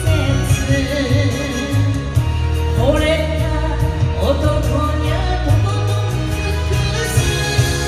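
A woman singing into a microphone over backing music with a steady bass and beat, amplified through stage speakers; her voice slides up into notes a few times.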